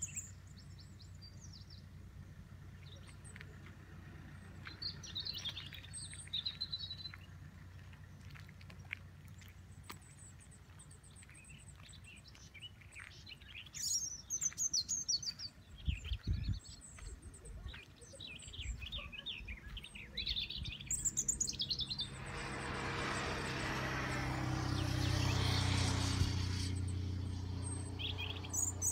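Small birds chirping and singing in trees throughout. About two-thirds of the way in, a vehicle passes on the road: a rush of noise with a low engine hum that swells, peaks and fades over about five seconds.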